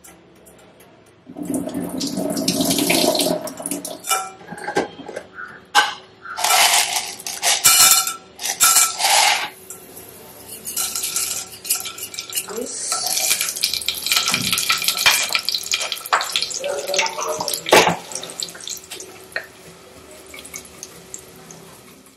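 Hot oil in a stainless steel pot sizzling as dal, chillies and seeds go in for a tempering. It comes in irregular loud surges with many short crackling pops.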